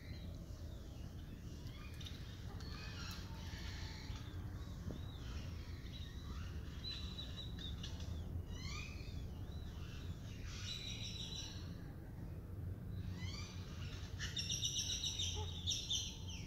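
Songbirds chirping and singing, many short calls sweeping up and down in pitch, busiest near the end, over a steady low background rumble.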